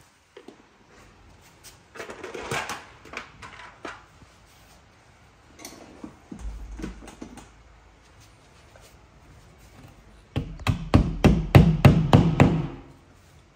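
Hammer knocking and tapping: scattered knocks at first, then a fast run of loud blows about ten seconds in, lasting a couple of seconds.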